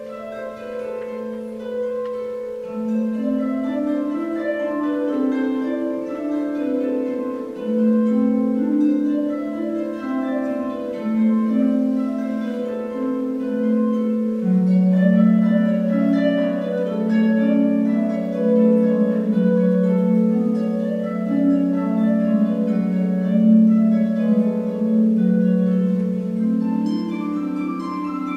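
Concert pedal harp played solo: plucked notes ringing on into one another over a slowly stepping bass line, growing louder over the first several seconds.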